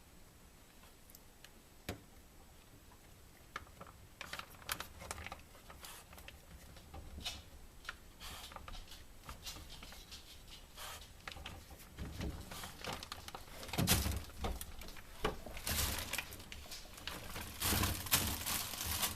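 A puppy rummaging inside a fridge: scattered small clicks and rustles of packaging and food that grow busier, with louder crinkling and knocking in the last few seconds.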